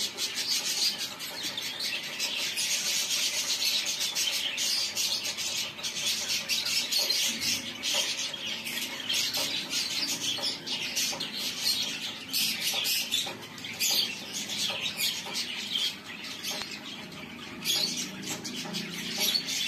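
Pet budgerigars chattering, a dense stream of quick, high chirps.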